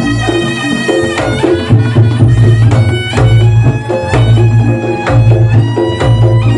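Reog Ponorogo gamelan music: kendang drums with a nasal slompret shawm melody over deep gong strokes that swell about once a second.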